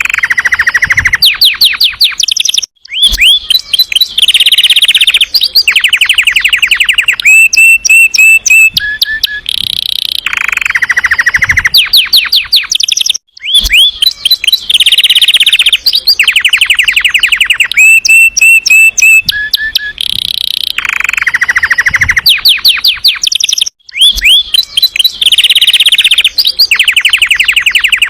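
Domestic canary singing a loud, continuous song of rapid rolling trills and chirped runs. The same sequence of phrases repeats about every ten seconds, each repeat separated by a brief gap.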